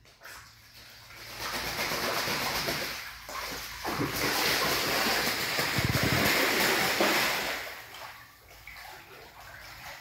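Muscovy duck bathing, splashing and beating the water with its wings in a steady spatter that starts about a second in and dies away near the end.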